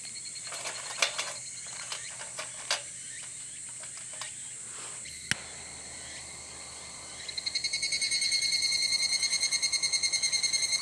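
Small twigs clicking and tapping in a stainless-steel wood-burning backpacking stove as it is loaded, with one sharper click about five seconds in. From about seven seconds in, a loud, rapid pulsed trill from a calling animal, over steady summer insect chirring.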